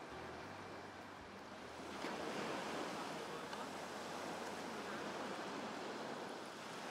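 Sea surf washing onto a sandy beach, a wave surging in about two seconds in.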